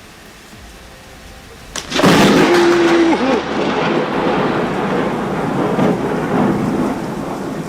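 Rain hissing steadily, then a close lightning strike: a sharp crack almost two seconds in, followed at once by a loud crash of thunder that keeps on rumbling.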